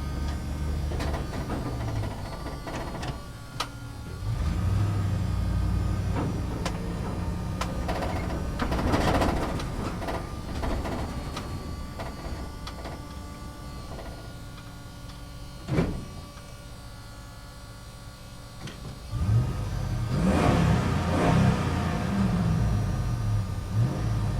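Small electric motors and gearboxes of an RC excavator and truck whining in short runs that rise and fall in pitch, with gritty hissing stretches about nine seconds in and again near the end as sand is scooped and tipped. A single sharp knock sounds about two thirds of the way through.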